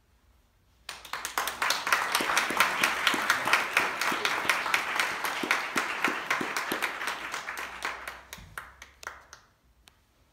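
Audience applauding. The applause starts suddenly about a second in and dies away to a few last claps near the end.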